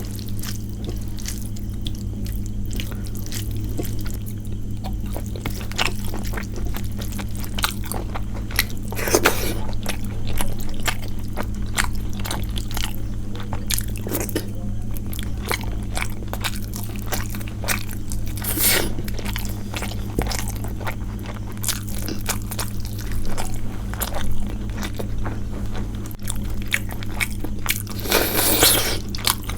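Close-miked chewing and eating sounds: a person eating a rice meal with curries, with frequent small wet clicks and occasional louder crunches about every nine seconds. A steady low hum runs underneath.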